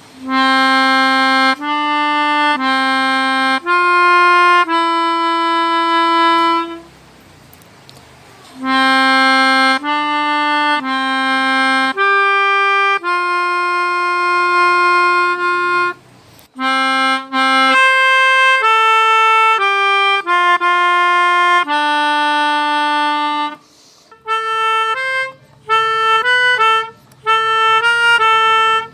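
Pianica (melodica), a keyboard-blown free-reed instrument, playing a simple melody one note at a time, mostly in long held notes. It pauses briefly three times, and the notes turn shorter and quicker near the end.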